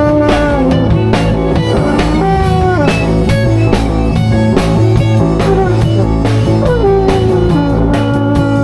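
Live improvised rock/blues band jam: a guitar-led melody line with slides and pitch bends, over sustained low bass notes and a drum kit keeping time.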